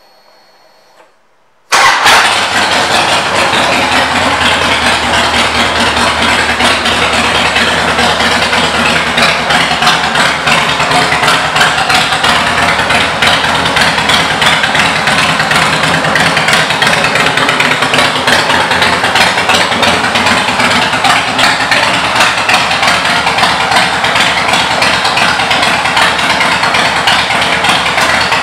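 The 2005 Harley-Davidson Softail Deuce's Twin Cam 88B V-twin starts suddenly about two seconds in and settles into a steady idle through its Python aftermarket exhaust pipes.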